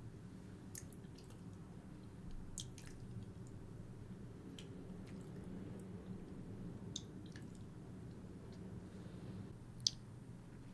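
Faint, wet lip smacks of two people kissing, a dozen or so scattered clicks over a low steady hum.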